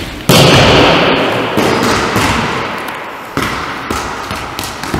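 A volleyball is slapped hard by the hand on a jump serve, a loud smack that echoes around the gym hall. Several smaller thuds follow as the ball lands and bounces.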